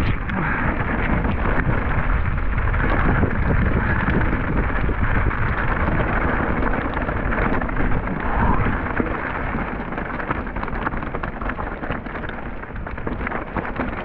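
Wind buffeting an outdoor microphone: a steady rumbling hiss with fine crackle.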